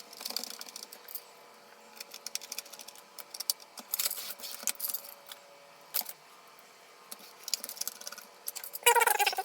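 Small screws being tightened to fasten a 2.5-inch PATA SSD into a Mac mini G4's metal drive bracket: scattered light metallic clicks and ticks, with short flurries about four and about eight seconds in.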